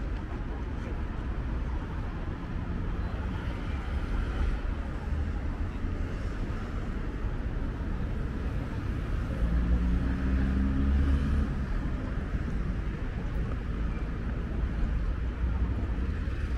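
City street ambience: a steady low rumble of road traffic, with one vehicle's engine growing louder and fading about ten seconds in.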